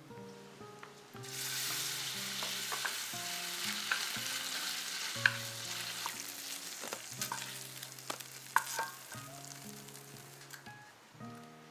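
Food sizzling in hot oil in a pan, starting suddenly about a second in and slowly dying down, with a few sharp clicks and taps of a utensil being stirred.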